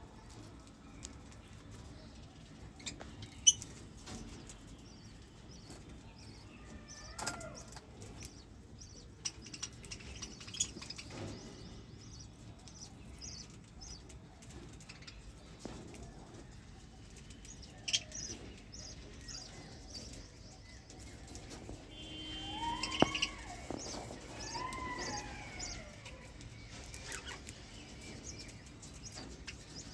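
Pet budgerigars chirping, with runs of short, high, rapid chirps and a few louder sliding calls about three quarters of the way through. Scattered sharp clicks or taps are heard, the loudest a few seconds in and another near the middle.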